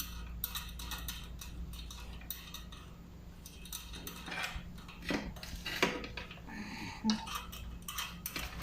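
Small metal bicycle parts and tools being handled during assembly: irregular light metallic clinks and rattles, busier in the second half.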